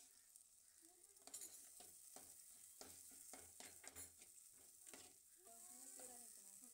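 Faint sizzling of a masala frying in oil in a pot, with a steel spatula stirring and scraping against the pot in short strokes from about a second in until about five seconds in.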